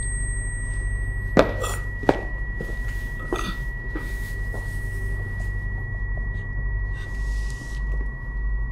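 A steady low hum with a thin, high ringing tone held throughout, and a few soft knocks and scuffs in the first half.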